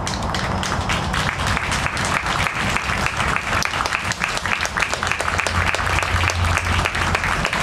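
Spectators applauding, a steady dense patter of many hands clapping that starts right at the beginning and keeps going.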